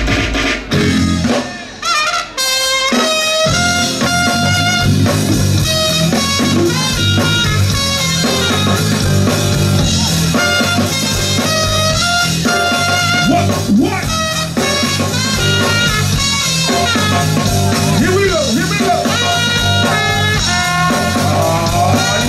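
Live band playing, with a trumpet carrying the tune in held, repeated notes over the bass and drums. The band makes a few short stops in the first two seconds, then plays on without a break.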